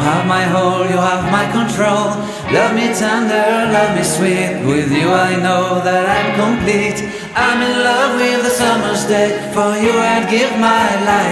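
Background pop song with a singer.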